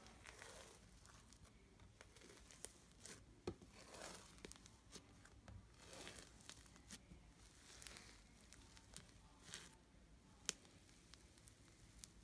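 Floam slime, slime packed with tiny foam beads, being squeezed and pulled by hand: faint, irregular crackles, clicks and squelches.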